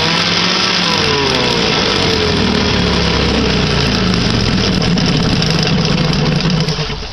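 1959 Kiekhaefer Mercury Mark 6A two-cylinder two-stroke outboard motor running in a barrel of water, its engine speed rising and falling several times as it is revved, then dropping back and quieter near the end. It is running on three-year-old fuel after sitting unstarted for about three years.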